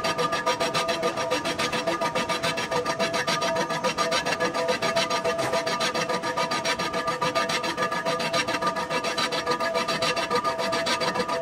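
Fast, even rasping strokes, about ten a second, over a few steady tones: a workshop machine or tool scraping or rubbing metal.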